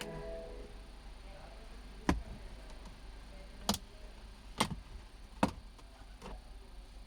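A brief squeak, then five sharp clicks and knocks at uneven intervals, the sound of hands and tools handling plastic trim and parts while a car's dashboard is being taken apart.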